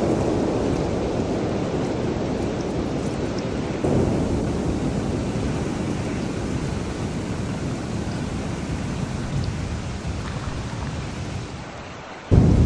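Thunderstorm with steady heavy rain and rolling thunder: a low rumble swells about four seconds in and slowly fades. Near the end the sound dips, then comes back suddenly and loud.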